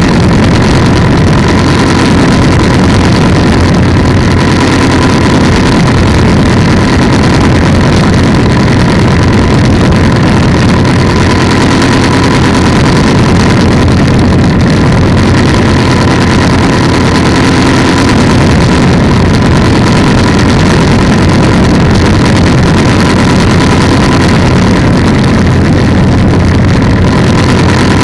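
Polini 190 single-cylinder two-stroke engine of an ATF powered trike running steadily at constant power, loud, with a steady high tone over it.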